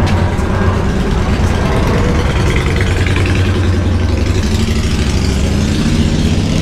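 Motor vehicle engine running close by, a steady low rumble over street noise.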